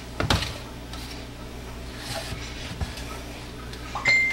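Plastic containers handled on a kitchen counter: a soft knock just after the start as one is set down, a few faint knocks later, and a short, steady high-pitched tone near the end.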